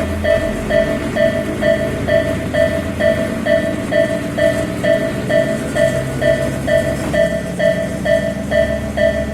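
Japanese level-crossing warning bell ringing over and over at a little over two strikes a second, over the steady rumble of a passing train.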